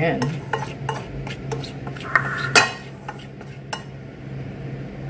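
A spoon stirring seasoned flour in a ceramic bowl, clinking and scraping against the bowl in quick irregular strokes, with one sharp knock about two and a half seconds in. The clinking stops a little before the end.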